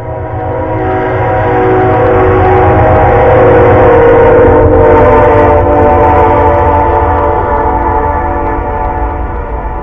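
Train horn sounding one long, continuous chord of several tones over the low rumble of the passing train. It swells to its loudest about four to five seconds in, then slowly fades.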